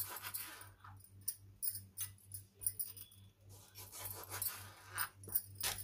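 Kitchen knife cutting limes on a plastic cutting board: a string of irregular short taps and clicks as the blade goes through the rind and meets the board, with bangles on the cutting wrist jingling lightly.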